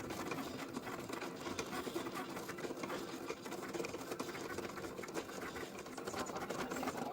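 Cricut cutting machine running: a steady mechanical whirring of its moving carriage, with rapid small ticks.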